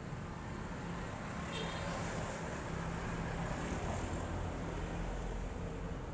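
Steady low background rumble with a faint hum, and a single light click about one and a half seconds in.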